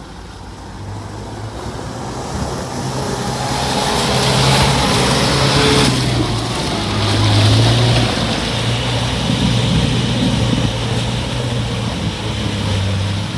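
Off-road 4x4 engine running under load, its pitch shifting a few times, with a loud rushing noise building from about three seconds in.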